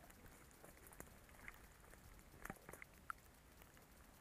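Near silence, with a few faint scattered ticks and taps.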